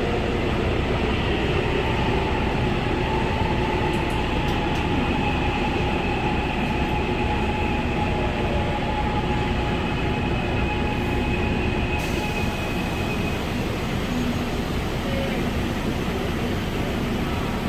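Gwangju Metro Line 1 subway train heard from inside the car: a steady rumble of wheels and running gear, with faint, thin whining tones over it.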